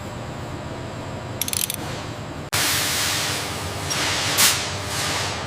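A steady low hum with a brief rattle of ratcheting clicks while fasteners are torqued. About two and a half seconds in, the sound switches abruptly to a loud, steady hiss of spraying air, swelling briefly near the end.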